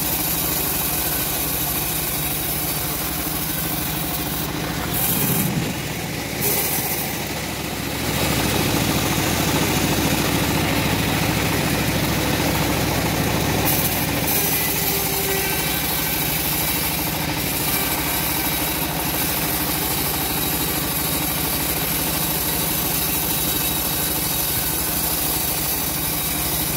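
Homemade band sawmill running steadily while its blade saws through a teak log. The sound dips briefly and then grows louder about eight seconds in.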